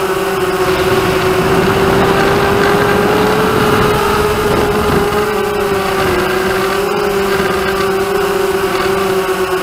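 Hexacopter's six DYS1803 brushless motors and propellers buzzing steadily in flight, the pitch drifting slightly up and down, heard close from the camera on board with a rush of air noise.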